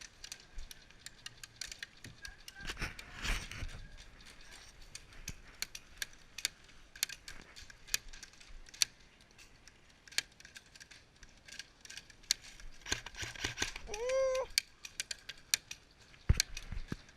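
Airsoft guns firing during a game: scattered sharp pops and clicks at irregular intervals, some close and some farther off.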